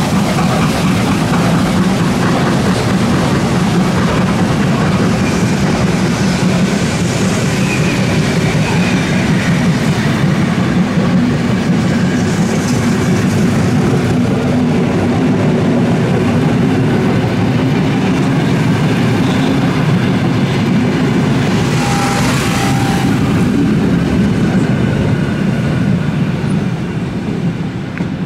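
A train running past at close range: a steady, loud rumble of wheels on rail, with a brief higher note about 22 seconds in. The sound eases slightly near the end.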